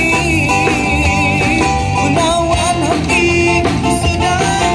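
Live band music in an instrumental passage: a lead guitar plays sustained, wavering melody notes over a steady drum beat.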